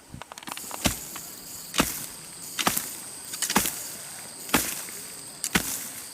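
A hand tool (hoe or shovel blade) chopping into grass and soil in a steady rhythm: six strikes, a little under one a second, with scraping and rustling between them.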